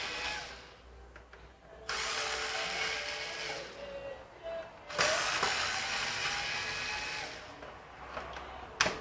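Handheld power drill-driver running in two bursts of about two seconds each, a whining motor with a buzz, as screws are driven out to remove a pressure washer's motor. A couple of sharp clacks near the end.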